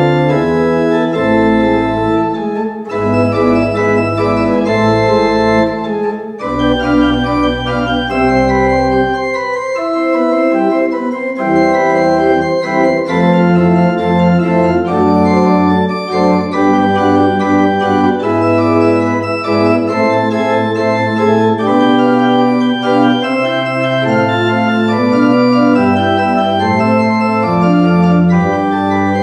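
Pipe organ playing slow, sustained chords, with deep pedal bass notes sounding under them in places.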